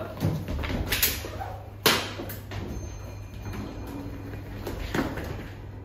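Several sharp knocks and thumps, the loudest about two seconds in, over a steady low hum.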